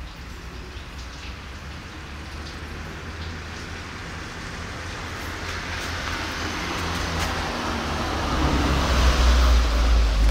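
A road vehicle passing close by: a rumble with tyre hiss that swells over several seconds and is loudest near the end.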